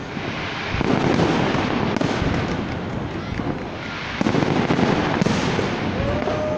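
Fireworks display: aerial shells bursting with a dense, continuous crackle, and louder bangs coming every second or two. A short whistle-like tone sounds near the end.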